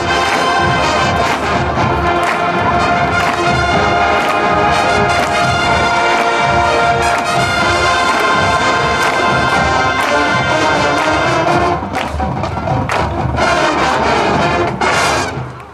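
Massed school marching band of about 700 players, brass over drums, playing held chords. Several loud accented hits come near the end before the whole band cuts off together at the final note.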